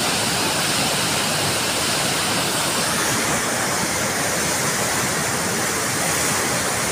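The swollen, muddy Jaldhaka River in spate, rushing in whitewater over boulders: a loud, steady, unbroken rush of water.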